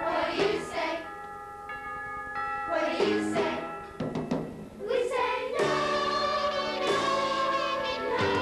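Youth choir singing with instrumental accompaniment, the voices holding long notes, with a short gap about two seconds in where only the accompaniment sounds.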